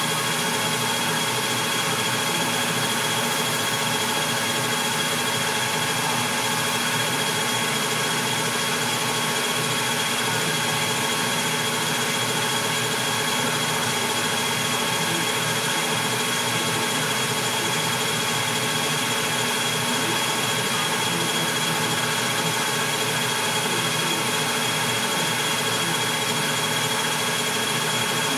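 Metal lathe running steadily with the workpiece spinning, giving a constant machine noise with a steady high whine.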